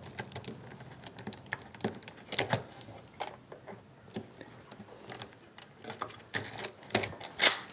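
Spiral ratchet (Yankee-style push) screwdriver driving a slotted wood screw into timber: a run of irregular sharp clicks and ratchet rattles, louder and quicker near the end as the screw goes home.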